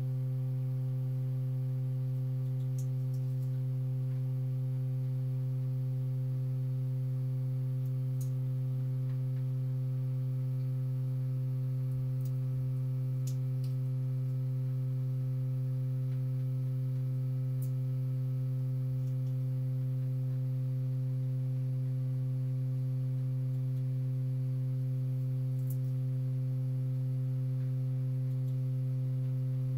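A steady low pure tone with fainter overtones above it, held unchanged throughout: a test tone played through a loudspeaker to set the water in the bowl into standing ripples that move the sand.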